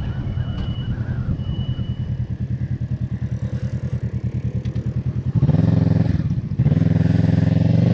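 Kawasaki motorcycle engine running while being ridden, a steady low pulsing at easy speed. About five seconds in it gets louder as the rider accelerates, drops briefly a second later, then picks up again.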